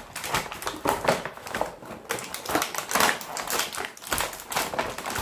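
Clear plastic packaging crinkling and crackling in irregular bursts as it is handled and peeled off: the shrink-wrap around a plaster excavation block and a thin plastic tray.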